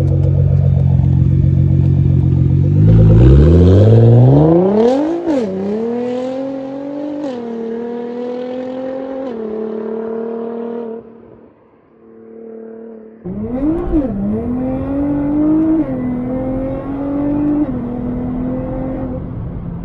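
Nissan GT-R R35's tuned twin-turbo V6 with a titanium exhaust accelerating hard through the gears: the engine note climbs steeply from a low run, then drops and climbs again at each of several upshifts. Around the middle it falls away almost to nothing, then pulls up again through more gear changes.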